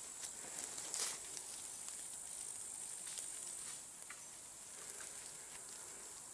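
Faint rustling and light scattered clicks of someone moving through forest undergrowth, over a steady high insect-like hiss.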